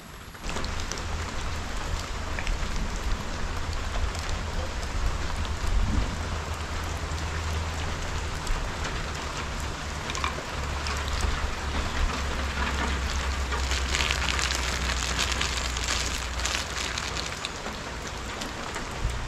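Heavy rain falling, a steady dense hiss with a low rumble underneath. It gets louder about half a second in and is heaviest a little past the two-thirds mark.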